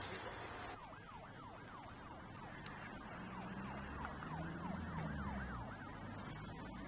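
Siren sounding in rapid falling sweeps, about three a second, over the low hum of a vehicle engine.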